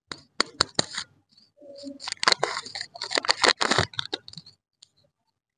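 Lollipop wrapper crinkling and crackling as it is pulled off a toffee pop, with sharp separate clicks in the first second and then a denser run of crackling that stops near the end.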